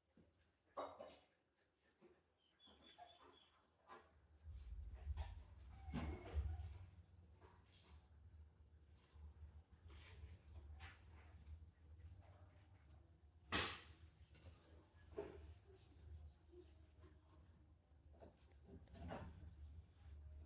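Faint, steady high-pitched insect drone, with scattered soft clicks and rustles and one sharp click about thirteen and a half seconds in.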